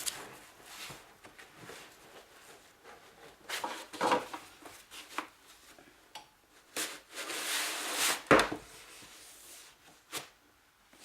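A laptop being slid into a sewn fabric laptop sleeve: fabric rubbing and rustling in a few bursts, with a sharp knock about eight seconds in and a short click near the end.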